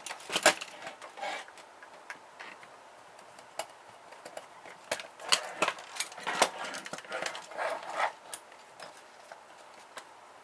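Plastic and metal parts of a small ribbon printer being handled and pried apart by hand: scattered sharp clicks and knocks, with a busier run of rattling and scraping about halfway through.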